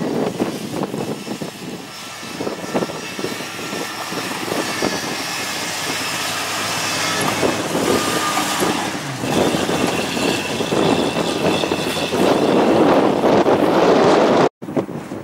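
Jeep Grand Cherokee driving over a rocky dirt track, its engine running throughout, passing close by and then pulling away uphill, louder toward the end. The sound cuts off abruptly near the end.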